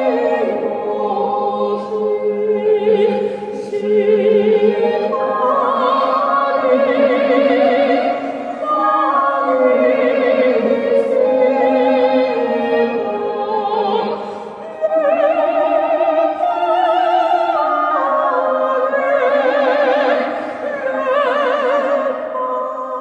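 A woman's operatic singing voice, with a wide vibrato, turned in real time into a choir by a gesture-controlled harmonizer. Several layered copies of her voice sound together as chords, in long held notes that change every few seconds.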